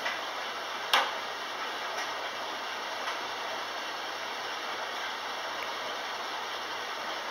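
Commercial front-load washing machine starting its cycle: a steady hiss of water filling the drum, with a sharp click about a second in and a couple of fainter ticks after it.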